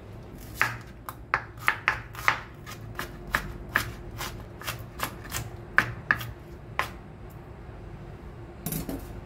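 Chef's knife chopping ginger on a bamboo cutting board: a series of sharp knocks, about two a second, that stop about seven seconds in. A brief rustling noise follows near the end.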